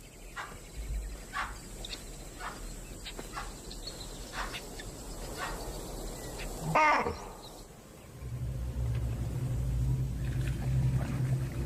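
Alarm calls of impala and baboons: short calls repeating about once a second, then one louder call that falls in pitch about seven seconds in. A low steady hum sets in about eight seconds in.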